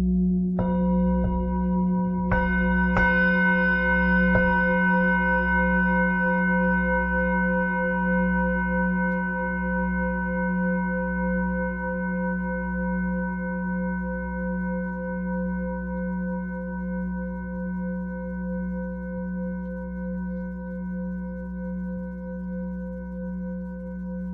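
Lingam singing bowl ringing with a steady low hum that pulses slowly in beats. Three strikes, about half a second, two and a half and three seconds in, add brighter higher tones that ring on and slowly fade.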